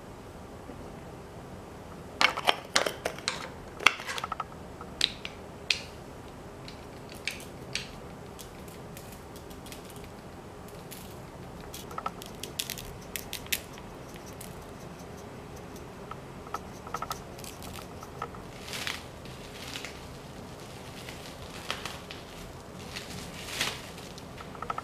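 Scattered sharp clicks and taps of a salt-and-pepper shaker being handled and shaken over a block of raw beef, densest a couple of seconds in. Near the end comes the crinkle of plastic cling wrap.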